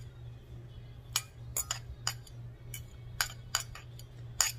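Metal fork clinking and scraping against a glass mixing bowl while stirring chicken salad: about a dozen quick, irregular clinks over a low steady hum.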